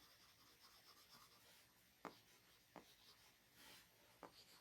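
Faint scratching of a stylus nib writing on a reMarkable 2's paper-like e-ink screen, with three light taps of the nib.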